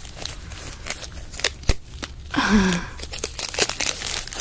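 Foil wrappers of sealed Pokémon booster packs crinkling and crackling as they are handled and shuffled by hand. A short voice sound falls in pitch about halfway through.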